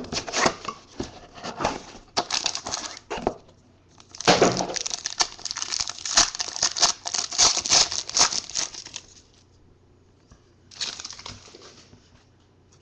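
Foil trading-card pack crinkling and being torn open by hand, in irregular bursts of crackly rustling that are densest from about four to nine seconds in, with another short burst near the end.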